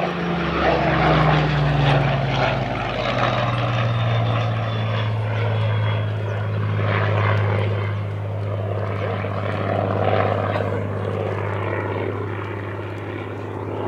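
A Spitfire LF Mk.Vb's Rolls-Royce Merlin V12 engine and propeller droning as the fighter flies by in a display. The pitch falls over the first couple of seconds, then holds steady, with the sound swelling and fading slightly.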